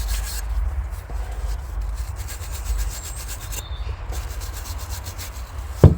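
Rust being scrubbed off a steel shotgun barrel in quick repeated rasping strokes, then a sharp knock just before the end.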